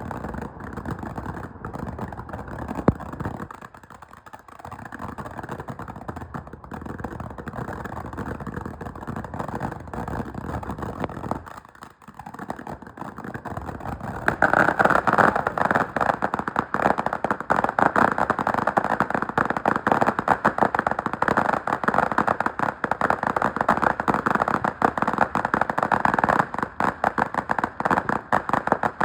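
Fireworks going off: a steady rumbling hiss with one sharp bang about three seconds in, then, about halfway through, a long, loud run of rapid crackling pops.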